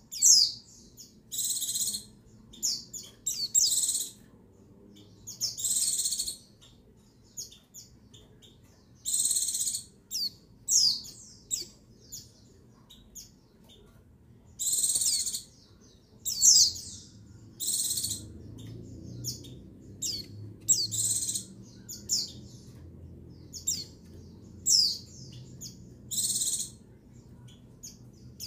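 Female white-eye (pleci) calling: short, high, thin calls with quick falling notes, each lasting about half a second and repeated every one to two seconds. This is a female's call to males.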